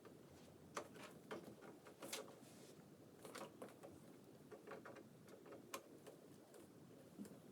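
Faint, irregular clicks and taps, about a dozen, as power-supply cables are handled and plugged into a PC's components.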